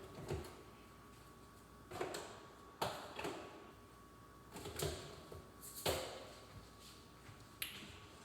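Kitchen things being handled while cooking: a string of short separate knocks and clatters, roughly one a second, over a faint steady hum.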